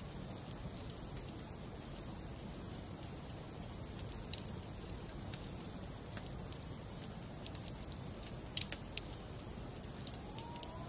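Wood fire burning in a fireplace, a steady low rush with frequent sharp crackles and pops, a few louder pops about nine seconds in and again near the end. A faint wavering whistle starts near the end.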